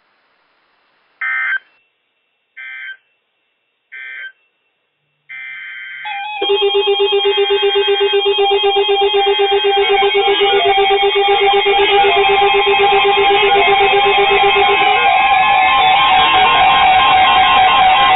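Emergency Alert System data bursts on NOAA Weather Radio: three short screeching bursts mark the end of one message, then a longer burst begins the next alert. About six seconds in, weather alert radios set off at once, a loud layered mix of beeping and warbling alarm tones that pulses rapidly.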